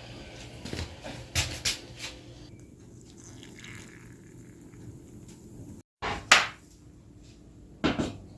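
Several sharp knocks and clatters, like dishes or cupboard doors in a kitchen. The loudest comes about six seconds in, right after a sudden cut.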